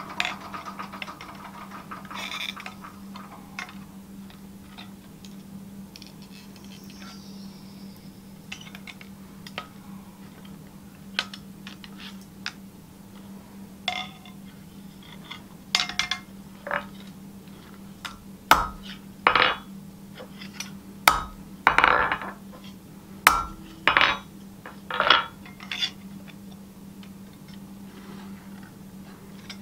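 Sharp metallic clinks and taps as pliers and blacksmith's tongs work a red-hot curl of spring steel against the anvil face. They are sparse at first and come thicker and louder in the second half, over a steady low hum.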